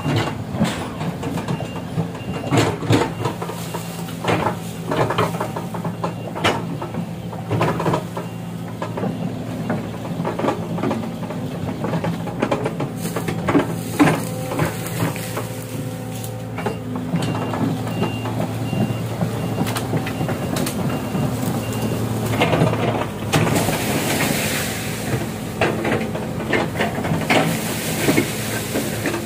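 Excavator's diesel engine running steadily, with repeated metallic clanks and knocks from the machine working. A high, evenly repeating beep alarm sounds through the first third and again in the middle.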